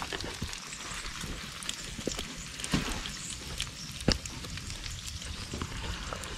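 Food sizzling as it fries in a pan: a steady hiss broken by a few sharp clicks, the loudest about four seconds in.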